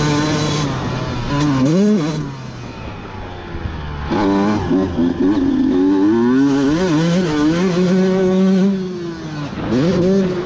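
Honda dirt bike engine revving hard and easing off as it is ridden around a motocross track: the revs climb, fall away about two seconds in, climb sharply about four seconds in and hold high, drop off near nine seconds, then climb again at the end.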